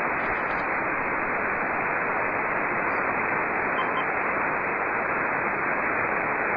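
Steady hiss from a VHF radio transceiver's receiver with no station coming through: the open band heard between contest calls.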